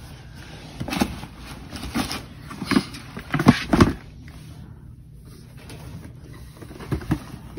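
Sneakers and cardboard shoeboxes being handled and set down: a series of short, soft knocks and thumps, loudest about three and a half seconds in, with a quieter stretch before a few more near the end.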